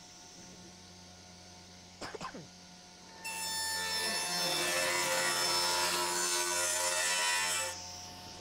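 Plastic litter box knocked lightly on a table saw's metal top, then slid across it: a loud, steady scraping rub with a ringing tone through it, lasting about four seconds and stopping sharply.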